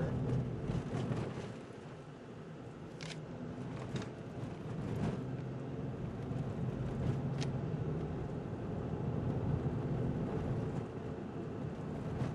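Road noise heard from inside a moving car on a dirt road: steady engine hum and tyre rumble, with a few short sharp ticks.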